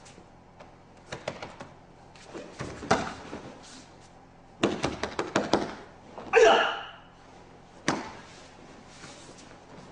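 Hapkido practitioners' feet and uniforms scuffing and slapping on a training mat in several quick flurries. A short, loud kiai shout comes about six and a half seconds in, followed by a single sharp thud a little over a second later.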